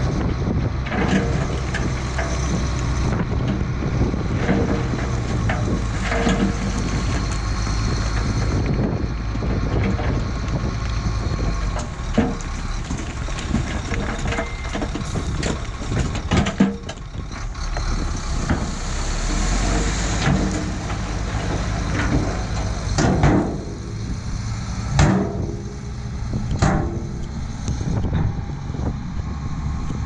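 SHACMAN F2000 dump truck's diesel engine running steadily as its tipper bed is raised and rock and dirt slide out. Stones knock and tumble onto the pile throughout, with a few louder clatters in the second half.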